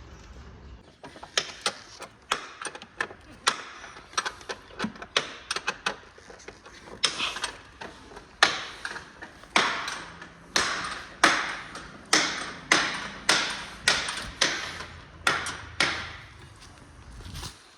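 Repeated hammer blows on metal suspension parts, each with a short ring. They are scattered lighter strikes at first, then a steadier run of louder blows about every half second from around seven seconds in.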